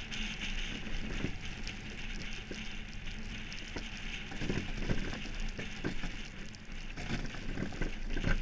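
Monotype XV iceboat under sail over snow-covered ice: a steady hiss from the runners with many irregular small clicks and knocks, over a low rumble.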